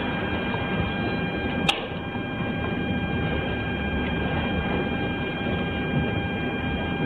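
Steady hiss and electrical hum with a thin high whine, from a police body camera's microphone. One sharp click comes a little under two seconds in.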